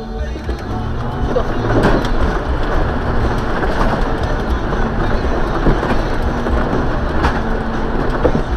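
Jeep driving through a flooded, muddy trail, heard from a camera mounted on its hood: the engine runs under a steady wash of splashing water and mud, with scattered knocks and clicks from the rough ride.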